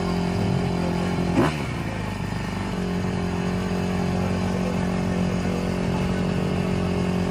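Motocross bike engine idling steadily, with one quick sharp throttle blip about a second and a half in before it settles back to idle.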